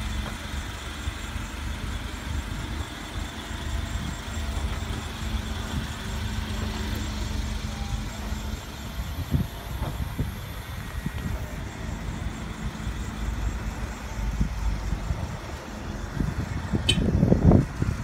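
Nissan forklift engine running steadily at low speed as the truck creeps along carrying a load. A brief louder rumble comes near the end.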